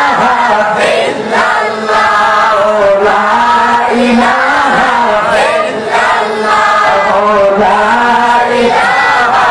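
A man chanting in a melodic, wavering singing voice into a microphone, his pitch gliding up and down between long held notes, with no breaks for ordinary speech.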